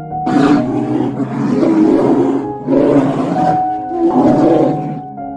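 A large animal roaring twice, each call long and rough, over background music.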